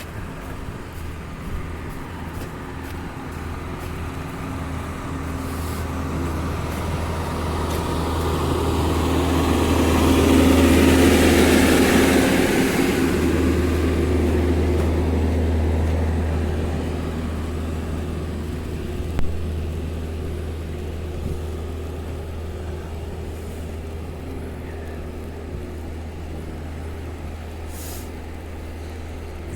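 Sidewalk snowplow's engine running, growing louder to a peak about ten seconds in as it is passed close by, then fading.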